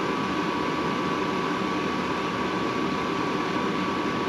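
RV propane furnace's blower fan running steadily with a constant whine, the burner not lighting: the furnace's sail switch is not closing, so the furnace is not engaging.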